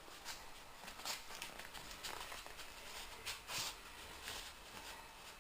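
Faint rustling with scattered soft taps, a dog nosing about and sniffing for hidden treats in a search game.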